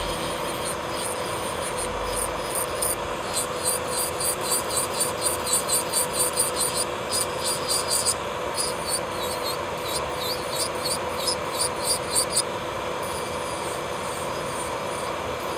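Electric nail drill (e-file) running at a steady high whine while its bit grinds base gel off a fingernail. From about three seconds in until near the end, a fast run of light, high scratching ticks comes from the bit passing over the nail.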